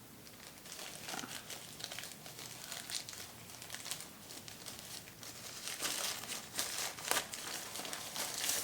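Packaging crinkling and rustling as it is handled and opened, in irregular crackles that grow louder in the second half.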